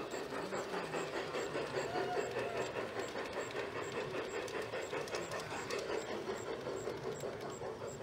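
G-scale model steam locomotive chuffing in a quick, steady rhythm as it pulls a short freight train, its wheels running on the track.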